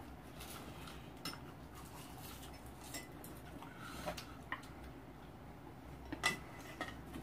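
Chopsticks and spoons clinking against pots and bowls during a meal: a few scattered light clicks, the loudest about six seconds in.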